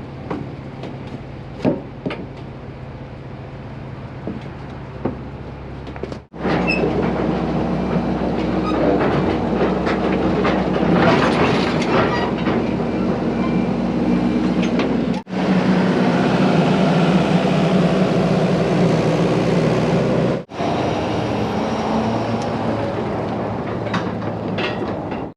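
Heavy equipment engine running steadily under a rattling, clattering metal noise, with scattered sharp clicks in the first few seconds. The sound changes abruptly at several cuts, getting louder after about six seconds.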